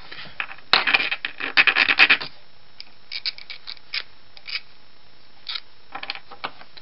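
Small metal parts of a Roto window corner drive scraping and clicking as a part is worked through it by hand. There is a dense run of scrapes and clicks about a second in, then scattered single clicks.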